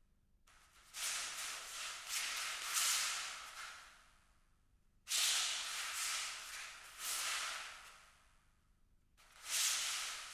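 Hissing, swishing noise in three stretches of a few seconds each, each starting suddenly and fading away, with dead silence between them.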